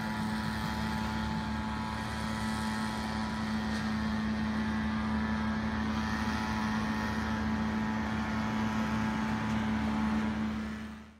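A steady mechanical hum holding one constant low pitch over a faint hiss, fading out at the very end.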